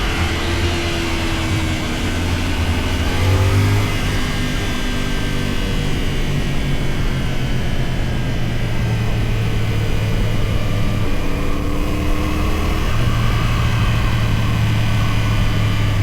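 CFMoto 450SR motorcycle's parallel-twin engine under way, its pitch rising and falling as the throttle opens and closes through the ride.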